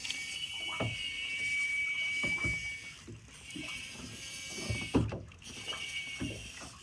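Fly reel's drag whining as a hooked skipjack tuna pulls line off the reel. It comes in two spells, stopping about three seconds in and starting again for a second or so near the end, with a few low knocks.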